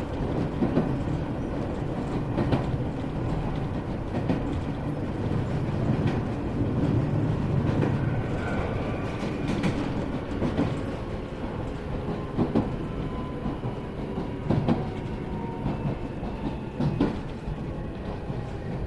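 Iyotetsu 3000-series electric train heard from inside motor car Moha 3103 while running. Wheels rumble steadily on the rails, rail joints clack every second or two, and a faint whine comes from the traction equipment.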